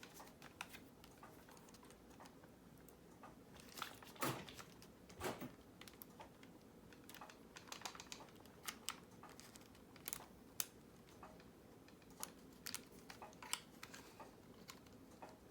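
Faint, scattered small clicks and taps of plastic clips and parts being handled as the fur skin is worked off a Squawkers McCaw animatronic toy parrot, with two slightly louder knocks about four and five seconds in.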